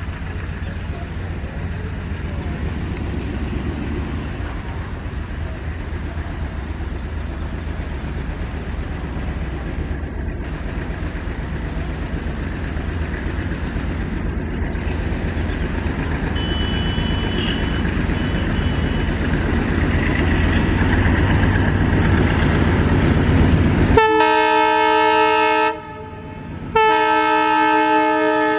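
Alco diesel locomotive engine chugging with a steady low throb as it hauls a passenger train, slowly getting louder. Near the end a multi-tone locomotive horn gives two loud blasts, about a second apart.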